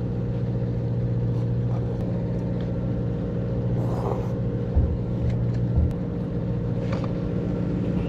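Fishing boat's engine running with a steady low hum, joined briefly by a couple of dull thumps and faint clicks of tackle near the middle.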